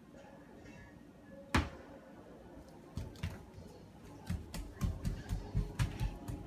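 One sharp knock about one and a half seconds in, then a run of dull footsteps on a tile floor, about three or four a second, through the second half.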